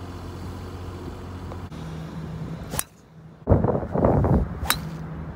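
Wind rumbling on the microphone for about a second, then a golf club striking a teed golf ball with a single sharp ping. A shorter click comes a little before the wind.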